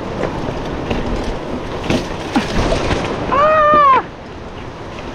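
Hero Octane Springbok 26 mountain bike rattling down a rocky stone trail, its tyres and frame clattering over the stones. About three seconds in a person gives one brief shout that rises and falls in pitch, the loudest sound here; the riding noise is lower after it.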